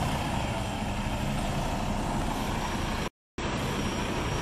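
Semi truck's diesel engine running steadily as the rig pulls slowly past. The sound cuts out completely for a moment about three seconds in.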